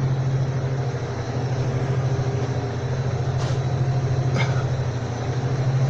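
Tractor engine running steadily under the cultivating load, a deep even hum, with two faint clicks in the middle.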